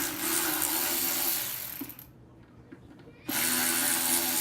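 Aerosol mass airflow sensor cleaner being sprayed in two long hissing bursts, the second starting about three seconds in.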